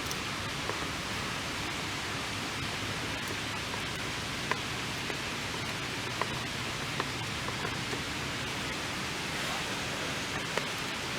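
Steady rain falling, with scattered sharp taps of heavier drops at irregular intervals.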